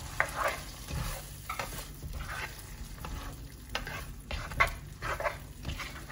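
Black plastic spatula stirring thick potato and chicken-liver chili sauce in a nonstick wok, scraping and sloshing in about ten irregular strokes over a low steady hiss from the hot pan.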